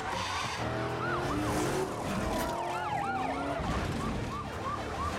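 Several police car sirens yelping at once, their quick rising-and-falling tones overlapping, over the low running of a car engine. Around the middle a long single tone slides down in pitch.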